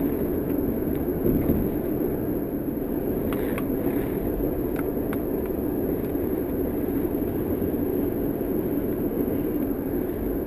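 Steady road and engine noise inside a moving car's cabin, with a few faint clicks about three to five seconds in.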